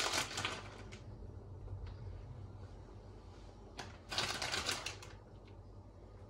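Crinkling rustle of grated kaşar cheese being shaken out of its packet and scattered over a lasagna, in two short bursts: one at the start and another about four seconds in.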